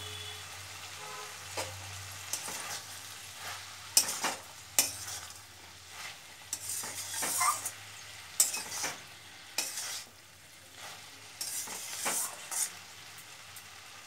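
Spatula stirring and scraping potatoes, onion stalks and fried eggplant around a stainless steel kadai, in irregular scrapes and knocks over a faint sizzle.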